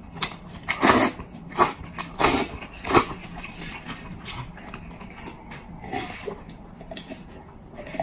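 Close-miked eating sounds: wet mouth smacks and chewing of fatty braised meat, in a cluster of loud smacks in the first three seconds, then softer scattered clicks.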